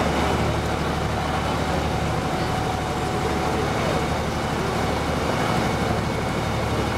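Passenger ferry's engine running steadily under way, a low even drone.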